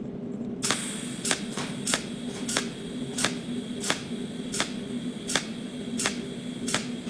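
Sharp clicks about every two-thirds of a second, some doubled, over a steady low hum.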